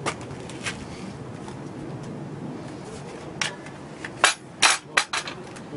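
Hard plastic clatter of cordless drill bodies and 18V Li-ion battery packs being handled and set down: a handful of sharp knocks and clacks, mostly between about three and a half and five seconds in, the loudest about four seconds in.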